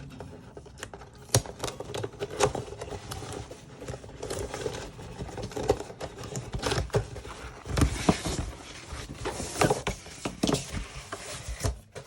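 Packaging being handled and opened: rustling of cardboard and plastic wrap with many sharp clicks and knocks, louder in the second half.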